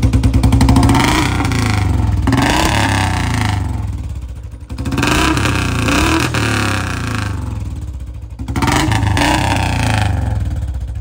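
Royal Enfield Classic 350's single-cylinder engine through a C-bend pipe and long Punjab silencer, idling with an even thump and revved three times by hand. Each rev rises and then drops back to idle.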